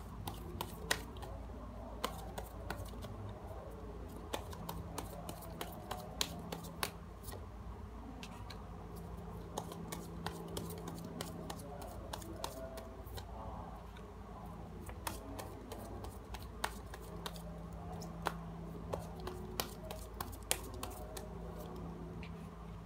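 A deck of oracle cards being shuffled and handled by hand, with sharp card snaps and clicks at irregular intervals over a steady low background hum.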